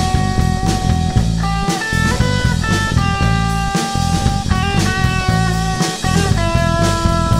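Rock music with electric guitar, held sustained notes over a steady drum and bass groove.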